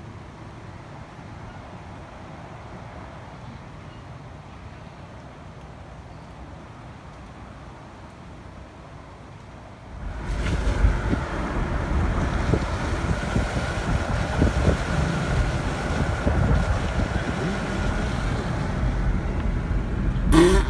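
Faint steady outdoor noise, then about halfway through a sudden much louder low rumble, with wind buffeting the microphone and a steady hum over it.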